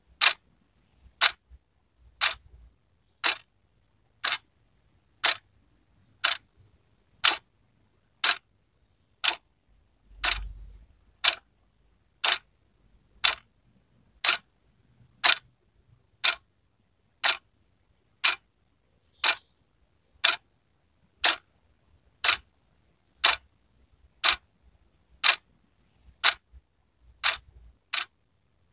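Wall clock ticking steadily, one crisp tick a second.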